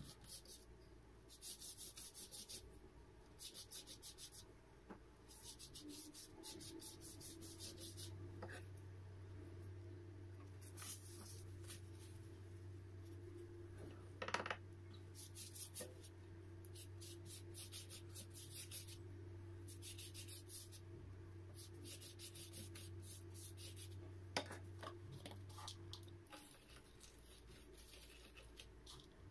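Scratchy rubbing strokes in short bursts, about a second apart, with a steady low hum running beneath them from about six seconds in until near the end, and one sharp click about halfway through.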